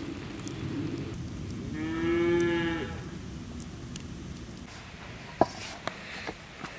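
A cow mooing once: a single call about a second long that rises a little and falls, about two seconds in. Later a sharp click, with a few smaller ticks after it.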